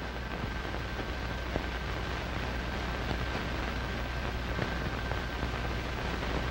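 Steady hiss with a low hum and a few faint clicks, the background noise of an old film soundtrack between lines of narration.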